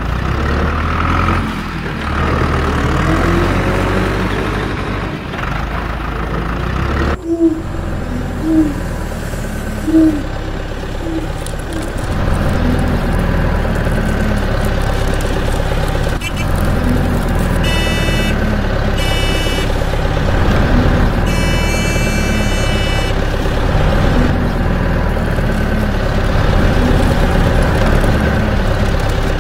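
Truck engine running steadily at idle, with two short high beeps a little past halfway and a longer one soon after.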